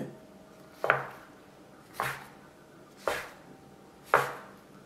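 Plastic dough scraper chopping down through a rolled log of dough and striking the wooden board, four cuts about a second apart.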